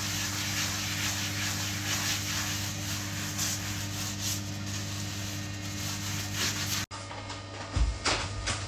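Soft rubbing and handling noises over a steady low hum in a small tiled bathroom. The sound changes abruptly near the end to a duller background.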